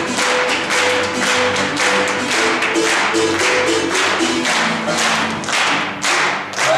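West African percussion ensemble playing: sharp, even strokes about four a second over a line of held pitched notes, breaking off suddenly near the end.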